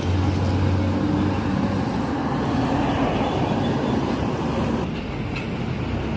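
Road traffic noise: a motor vehicle's engine hums close by and fades out about a second and a half in, leaving a steady traffic rumble.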